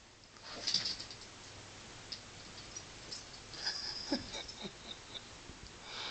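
Small dog sniffing and scrabbling along the floor at the gap beside a clothes dryer, hunting a mouse hidden there, with scattered scuffs and clicks. A short scuffing burst comes about a second in, and a brief high-pitched sound about four seconds in.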